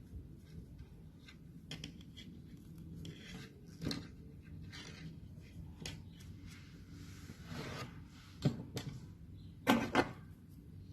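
Small handling noises of crochet work close to the microphone: light clicks and soft rustling, with a few sharper knocks, the loudest two coming about eight and a half and nine and a half seconds in.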